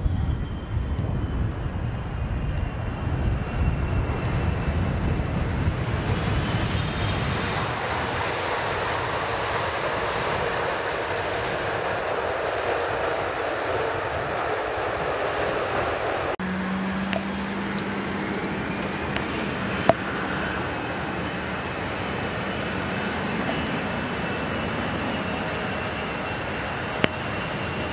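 Boeing 777 landing: a deep rumble as the main gear runs along the runway, then broad jet-engine noise swelling over the landing roll. The sound cuts abruptly to a different twin-engine jet, an Antonov An-72, on the runway, with a steady low engine hum and a thin high whine.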